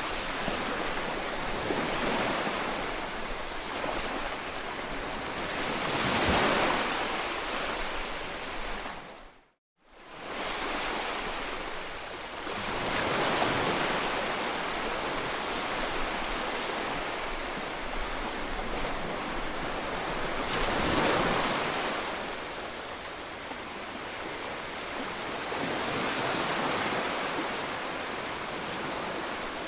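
Sea waves washing up a sandy beach, a steady hiss that swells and fades every several seconds as each wave comes in. It cuts out briefly about ten seconds in.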